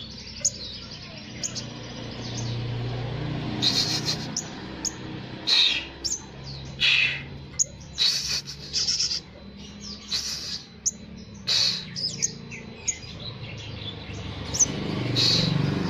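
Olive-backed sunbird (sriganti) singing in short, sharp chirps, about a dozen spread through, its song filled with Java sparrow phrases. A steady low hum runs underneath.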